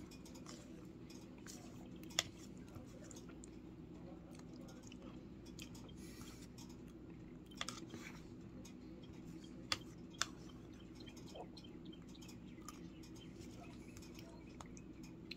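A person chewing and eating spaghetti, with a few sharp clicks of a metal fork against a plastic tray, over a steady low hum.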